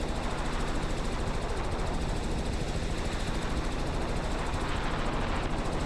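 Robinson R44 Raven II helicopter in cruise flight, heard inside the cabin: the steady drone of the engine and rotor with a fast, even pulsing from the blades.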